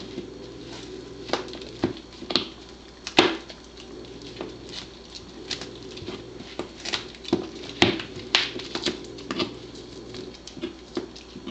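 Pembroke Welsh Corgi gnawing and tearing meat off a raw buffalo rib bone: irregular wet chewing with sharp clicks and cracks of teeth on bone, several of them loud.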